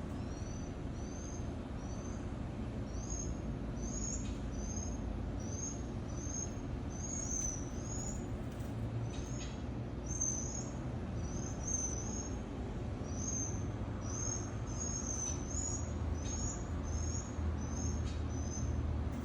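Small bird chirping over and over, short high calls about two a second, over a steady low rumble.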